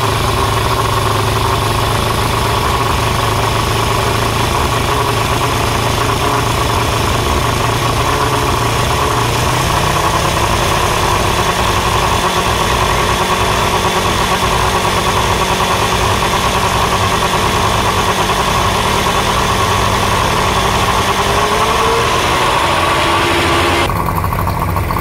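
Yamaha 115 hp two-stroke V4 outboard idling steadily with its cowling off. It runs, but not right: the owner suspects the carburetors' needle jets or a clogging fuel filter.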